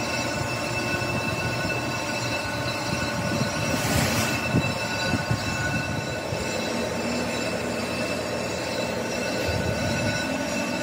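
Metal machining noise: a steady metallic whine of several high tones over a rough grinding rattle, with a brief louder hiss about four seconds in.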